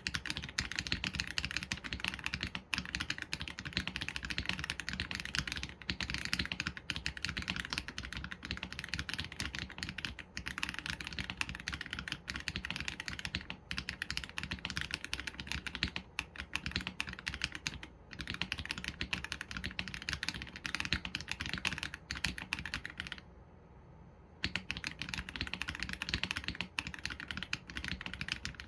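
Continuous fast typing on an AULA F87 Pro mechanical keyboard with Leobog Graywood V3 linear switches and PBT keycaps: a dense run of keystroke clacks with a brief pause a little after two-thirds through.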